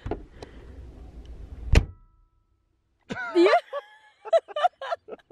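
Low handling rumble from a handheld camera ending in one sharp thump, then a sudden cut to dead silence. After about a second, voices begin.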